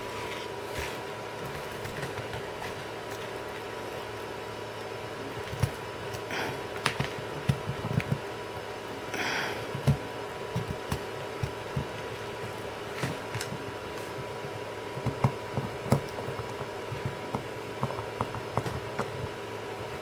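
Scattered small clicks and taps of wires and a screwdriver being worked onto the screw terminals of a heavy-duty toggle switch, over a steady background hum.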